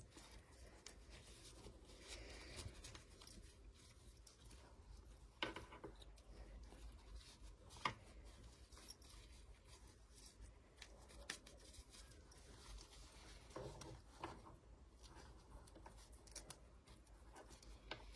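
Near silence with faint rustling and a few light clicks: a small doll being handled and dressed in a cloth blouse.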